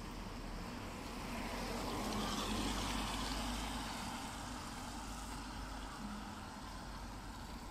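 A vehicle passing: a broad rushing noise swells, loudest about two and a half seconds in, then fades back to a steady low background hum.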